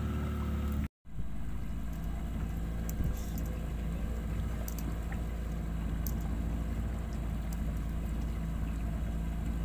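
Yamaha Enduro two-stroke outboard motor running steadily, pushing a small boat, with water and wind noise over it. The sound breaks off for an instant about a second in.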